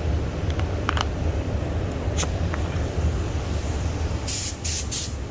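Automotive spray gun with a 1.4 mm tip giving three short hissing test bursts of primer surfacer near the end, over a steady low rumble. A few faint clicks come earlier.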